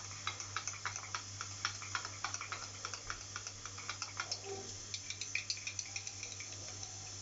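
Spoon stirring a thick honey-and-spice mixture in a small bowl, clicking and scraping against the bowl in light, quick taps about three or four a second, thinning out after about four seconds.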